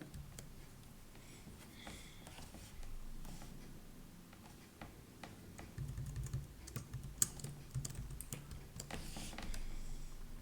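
Typing on a computer keyboard: irregular key clicks, busier in the second half.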